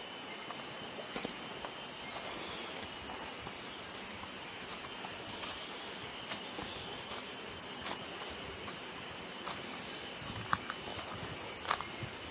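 Steady high-pitched insect chorus in forest, running without a break, with a few short sharp clicks, the loudest two near the end.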